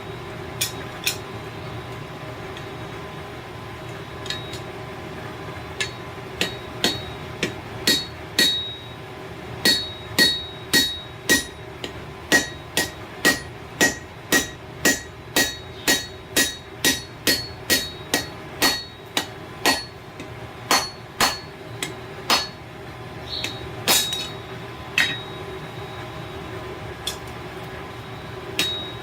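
Hand hammer striking hot railroad-spike steel on an anvil while a hook is forged; each blow rings with a metallic ping. A few scattered strikes build into a steady run of about one and a half blows a second for around fifteen seconds, then thin out to a few last taps.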